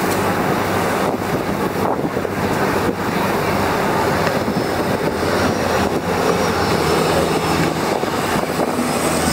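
A river boat's engine running steadily under way, mixed with wind buffeting the microphone and the rush of the boat's wake alongside.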